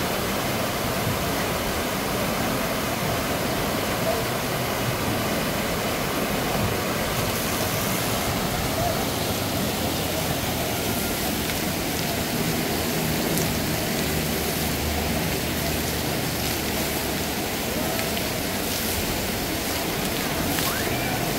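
Steady rush of falling water with a faint murmur of distant voices.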